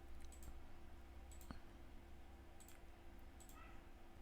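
Faint quick clicks, several of them in close pairs, over a faint steady hum: computer mouse clicks switching the recording input from one microphone to the other.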